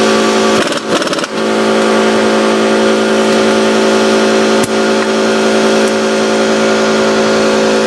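A motor running steadily at one constant pitch, with a brief clatter about a second in and a single sharp click near the middle.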